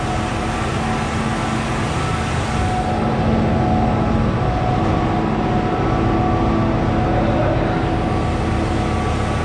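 Concrete boom pump truck's engine running steadily, with a hum whose tones shift in pitch about halfway through.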